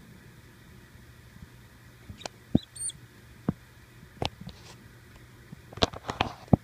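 A live hopper mouse gives one brief, high-pitched squeak about three seconds in as a Pacman frog seizes it, amid scattered sharp clicks and thumps from the struggle.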